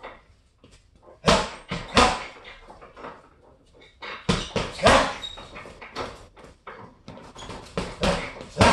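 Boxing gloves punching a hanging Everlast heavy bag: sharp thuds, mostly in quick pairs like one-two combinations, about three times, with lighter taps and shuffling between.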